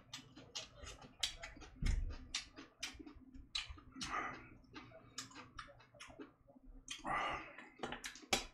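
Close-miked chewing and mouth sounds of someone eating: irregular wet clicks and smacks several times a second, a couple of breathy slurps, and a low thump about two seconds in.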